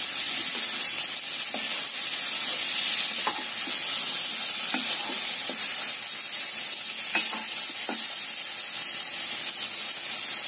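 Potatoes, peanuts, moong dal and curry leaves frying in ghee in a nonstick kadhai: a steady sizzle, with a wooden spatula stirring and scraping the pan now and then.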